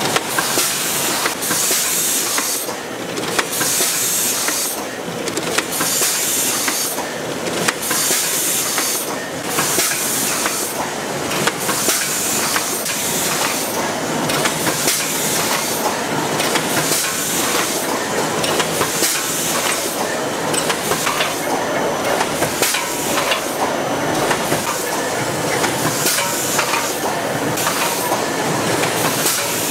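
Automated ice cream cup filling and lid-sealing line running: steady mechanical clatter with small clicks and a pneumatic hiss. For about the first half the hiss rises and falls in a cycle about every two seconds.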